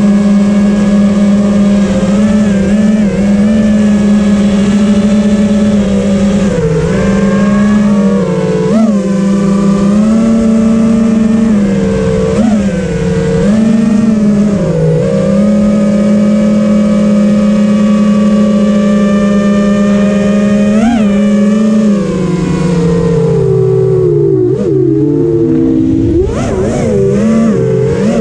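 FPV quadcopter's brushless motors and propellers, heard from the GoPro on board, whining steadily with brief rises in pitch as the throttle is punched. Near the end the pitch drops and swings up and down, with a few sharp clicks.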